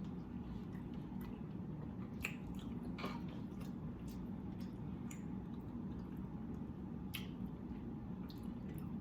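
Close-up wet eating sounds from someone chewing barbecue-sauced seafood: soft, irregular mouth clicks and smacks over a steady low hum.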